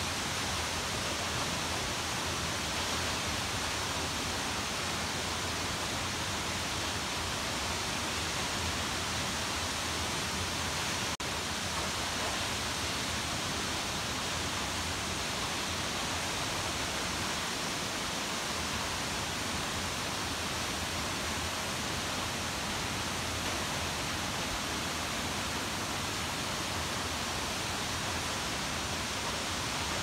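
Senrigataki waterfall rushing: a steady, even roar of falling water, with a momentary dip about eleven seconds in.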